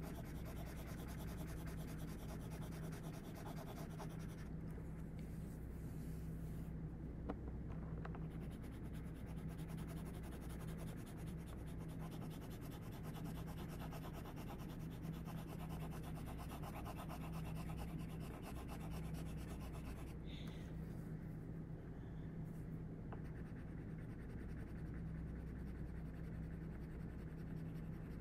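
Pencil shading back and forth on paper, a soft continuous scratching, over a steady low hum.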